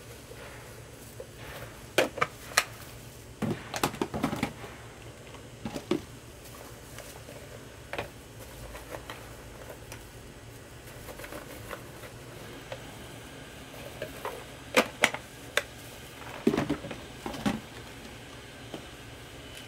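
Scattered light clicks and taps as a plastic tub is handled and wafer cubes are picked out and set down, in small clusters, over a steady low hum.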